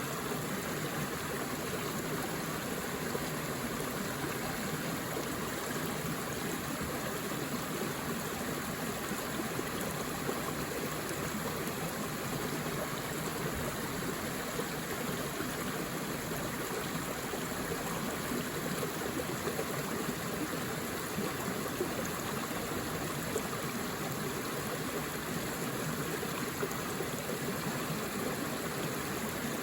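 Forest river flowing steadily over rocks, an even rushing and babbling of water.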